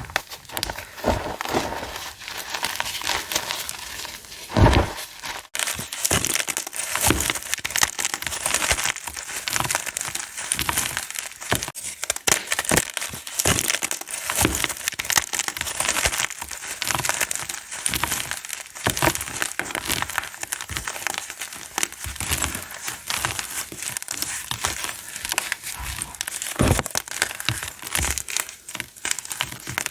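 Blocks of gym chalk being crushed, with dense, crisp crackling and crunching that runs on without a break. A few heavier thuds come through, about five seconds in and again near the end.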